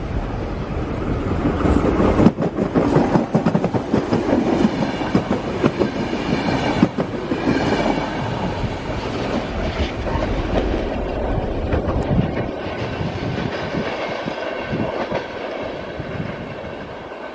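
Electric multiple-unit passenger train passing close by, its wheels clattering on the rails. The sound is loudest in the first half and fades slowly as the train moves away.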